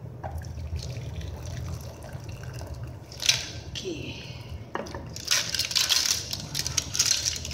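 Hot clam and coconut-cream broth poured from a pan into a bowl: liquid splashing, in a short surge about three seconds in and a longer one from about five seconds on, over a steady low hum.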